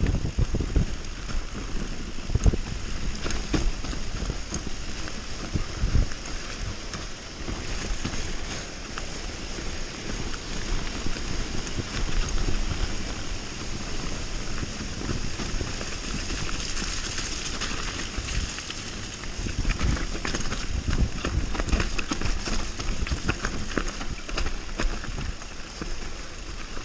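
Mountain bike riding fast down a dirt forest trail: tyres rolling and crunching over dirt and roots, and the bike rattling and knocking over bumps, with wind rushing on the microphone.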